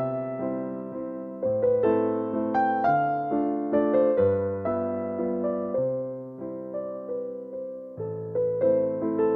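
Calm background music on electric piano: a gentle melody of single notes over soft chords, with a new bass note about every two seconds.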